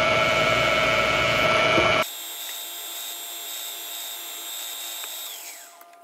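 Bridgeport milling machine drilling a hole in a cast brass door handle: a loud, steady cutting noise that stops abruptly about two seconds in. The spindle then runs on more quietly with a high whine, which falls in pitch near the end as the machine is switched off and spins down.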